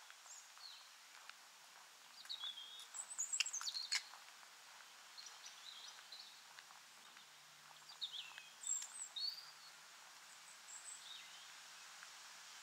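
Small birds giving short, high chirps in scattered bursts, busiest around three to four seconds in and again about two-thirds of the way through, over a faint steady outdoor hiss.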